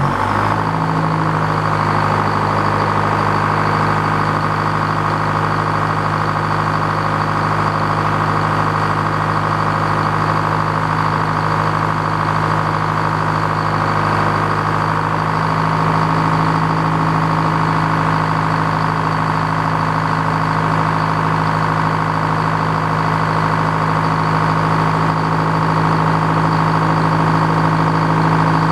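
Antique Frick sawmill running: its power unit and spinning circular saw blade make a steady drone with a high whine. About halfway in a second, lower tone joins and the sound grows slightly louder, as the blade works through a pine log.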